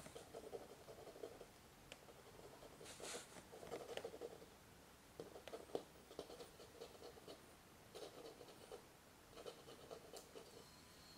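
Near silence: a quiet room with faint, irregular soft scratches and light taps.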